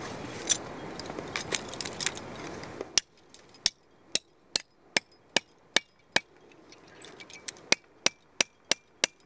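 Climbing hammer striking a steel piton being driven into a granite crack: a steady series of sharp, ringing metal taps, roughly two to three a second. Wind noise fills the first three seconds and then cuts off abruptly.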